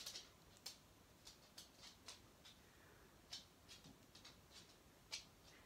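Near silence, broken by scattered faint short clicks of lips and a gloss applicator wand as a thick, sticky lip gloss is worked onto the lips. Two clicks, about three and a half and five seconds in, stand out a little.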